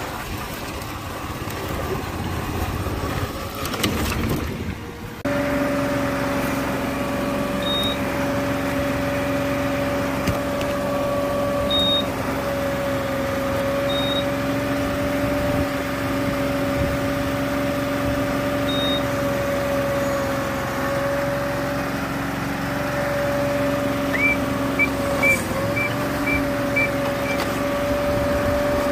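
Small engine of a Tongyang rice transplanter running at a steady speed, a constant drone. The first five seconds are rougher and noisier. The drone settles abruptly about five seconds in.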